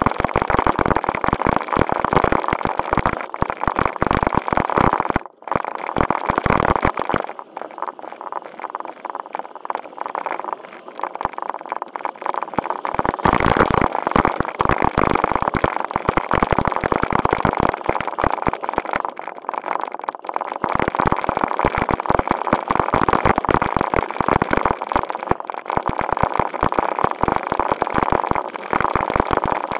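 A JJRC Q76 4WD RC stunt car driving, heard from a camera mounted on the car: its electric motors whine steadily under constant rattling and crunching from the wheels on gravel. The noise drops out briefly about five seconds in, is softer for several seconds after that, then comes back loud.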